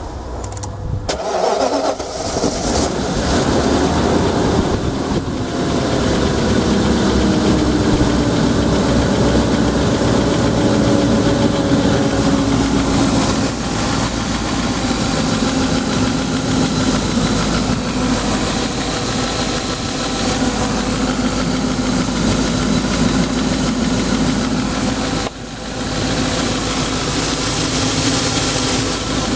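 BMW E32 740i's M60 V8 engine starting, a somewhat rough start, about a second or two in. It then runs at a fast cold idle whose pitch slowly drops over the next several seconds and settles into a steady idle.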